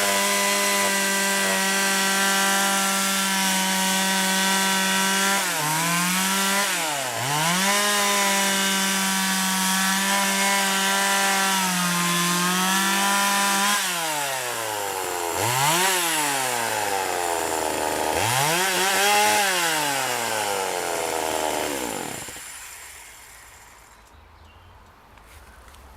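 Partner 465 two-stroke chainsaw engine held at high revs, dipping briefly and picking back up about six seconds in. From about halfway it is revved down and up several times, answering the throttle quickly, and then the engine stops near the end.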